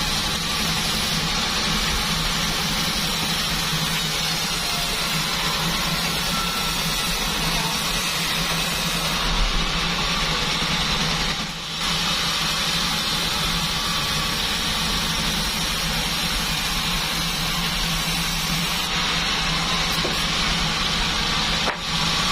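Bandsaw sawmill machine running steadily, its motor droning under a constant hiss, with brief dips in loudness about halfway through and near the end.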